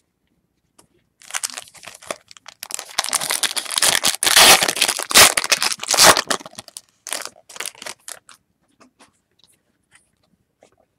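A Topps Chrome football card pack's foil wrapper being torn open and crinkled for several seconds, loudest in the middle, followed by a few lighter rustles and clicks as the cards are handled.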